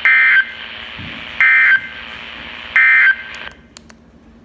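Emergency Alert System end-of-message data signal played over a weather radio: three short, loud, harsh digital bursts about 1.4 seconds apart, marking the end of the alert. The radio's background hiss cuts off right after the third burst.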